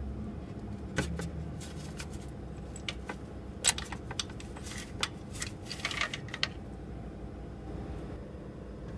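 Metal clicks and clinks of the Bulletproof crack repair tool being handled and taken out of the injector bore of a 6.0 diesel cylinder head, bunched between about one and six and a half seconds in, with one sharper click near the middle. A steady low hum runs underneath.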